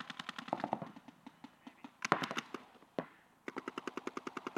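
Paintball markers firing in rapid strings of shots, about a dozen a second at the fastest, in bursts with a short pause around three seconds in.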